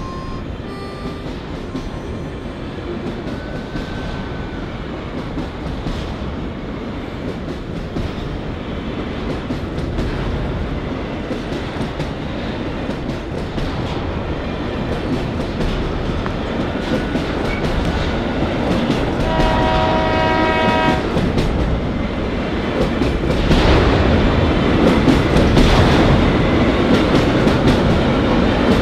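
Freight train approaching, its rumble growing steadily louder, with a horn blast of about two seconds a little past the middle. Then the train passes close by, its wheels clattering on the rails.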